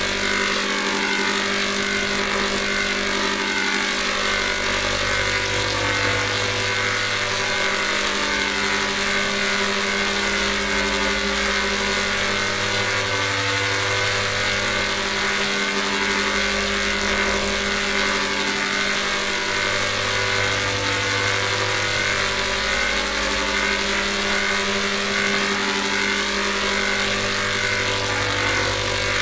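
Digitally processed 'G major' audio effect: several pitch-shifted copies of one sound layered into a dense, steady drone of held tones. A low hum swells in and drops out again every several seconds.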